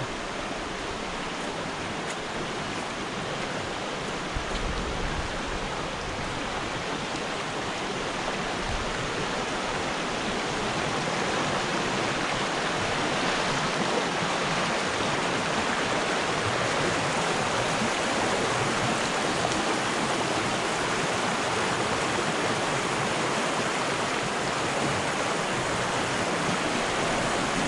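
Shallow river rushing over rocks in small rapids: a steady rush of water that grows a little louder over the first fifteen seconds or so.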